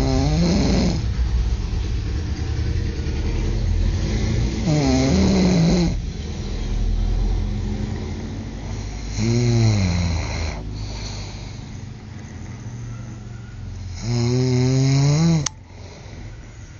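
Men snoring loudly in deep sleep: four long snores about every four to five seconds, each sliding in pitch, over a steady low hum. The last snore is cut off by a sharp click near the end.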